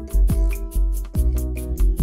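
Background music with a steady beat: regular drum hits under held chords.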